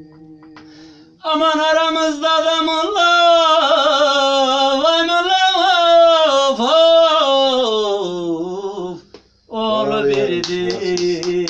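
A man singing a long, free-flowing Turkish folk vocal line with wide sliding pitches and held notes, in the bozlak style. It comes in about a second in and breaks off near 9 s. Near the end the voice returns with sharp, regular davul drum strokes under it.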